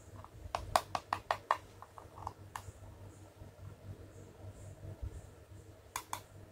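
Fingers and nails clicking and tapping on a hard plastic heart-shaped toy compact: a quick run of about ten light clicks in the first couple of seconds, then two more clicks near the end.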